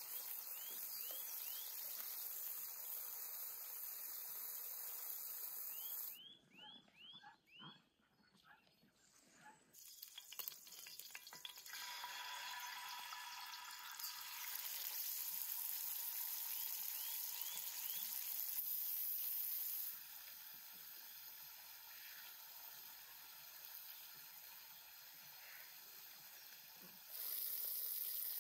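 Pieces of meat sizzling in hot oil in a wide metal pan, a steady hiss that drops away for a few seconds, then sizzles again and comes back loudest near the end.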